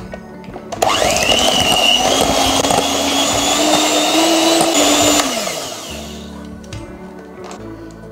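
Electric hand mixer beating thick boiled condensed milk in a glass bowl: the motor switches on suddenly about a second in, runs with a steady whine for about four seconds, then winds down and stops. Background music plays underneath.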